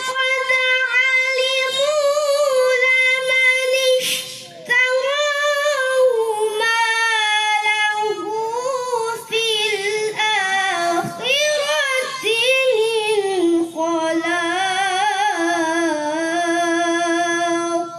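A young boy reciting the Quran in melodic tilawah style: long, ornamented phrases sung high at first, with a short breath about four seconds in. From about the middle the melody sinks lower, settling on a lower held pitch toward the end.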